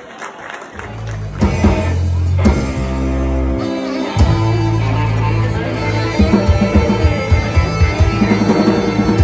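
Live rock band playing, with electric guitar, bass guitar and drum kit, coming in loud about a second in.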